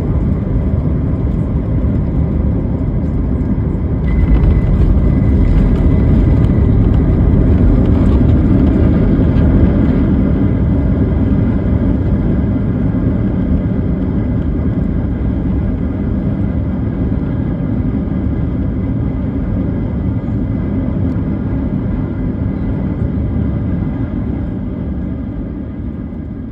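Boeing 737 MAX 8 cabin noise during the landing roll: a loud, steady rumble of engines and wheels that gets louder about four seconds in, then slowly fades as the airliner decelerates on the runway.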